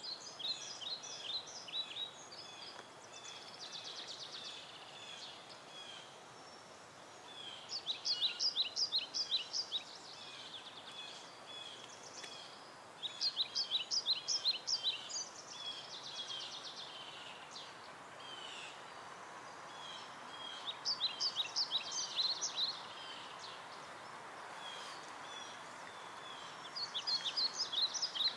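A songbird singing, repeating a short phrase of quick high chirps every several seconds with a softer trill now and then between phrases, over a steady outdoor hiss.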